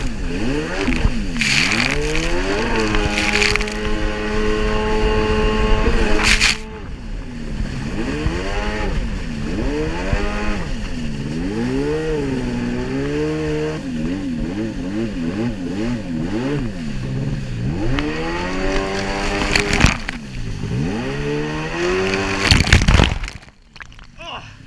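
Jet ski engine running hard, its pitch rising and falling again and again as the throttle is worked through turns, with sudden bursts of splashing spray. Near the end the sound drops away sharply for about a second before picking up again.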